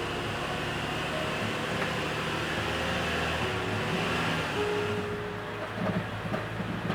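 Car engine idling steadily, a low even rumble, with a few light knocks near the end.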